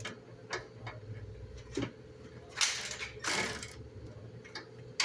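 Hand ratchet wrench clicking as a bolt is worked loose, in scattered single clicks and two short, denser runs a little past halfway, over a steady low hum.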